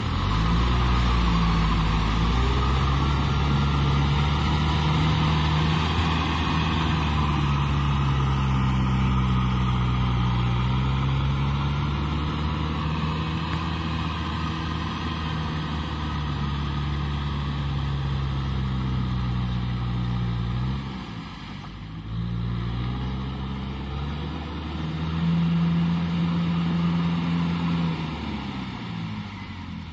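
Kubota tractor's diesel engine running under load as it pulls a rotavator through wet paddy mud, its pitch wavering up and down. The engine sound drops for a few seconds about two-thirds of the way in, then comes back up.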